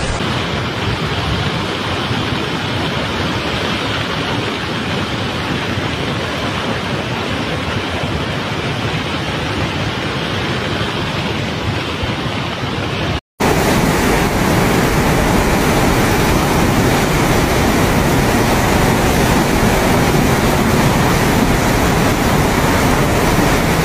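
Rushing floodwater: a fast, muddy torrent making a steady, loud rush of water noise. It cuts out for an instant about 13 seconds in, then comes back fuller and deeper.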